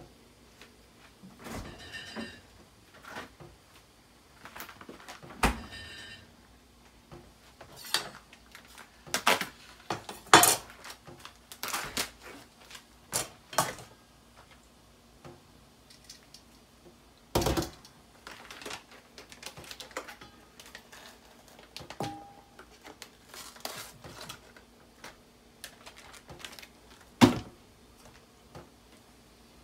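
Stainless steel colander and mixing bowl being handled while raw chicken pieces are moved: scattered knocks and clatters of metal, with a couple of short metallic rings in the first few seconds.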